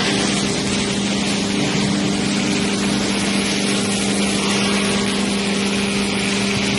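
Four-roll CNC plate rolling machine running: a steady machine hum with one constant tone over an even mechanical hiss.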